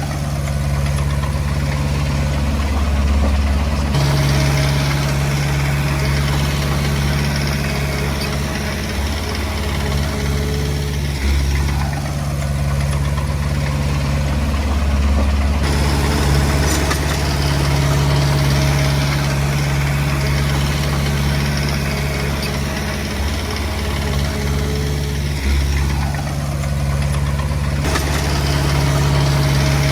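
Heavy diesel engine of a Komatsu D20P crawler bulldozer running steadily, its sound changing abruptly a few times.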